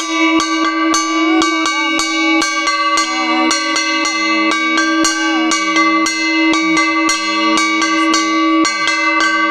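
A puja hand bell rung continuously for the aarti, about three to four strikes a second, its ringing overlapping into a steady shimmer. A voice chants faintly beneath it.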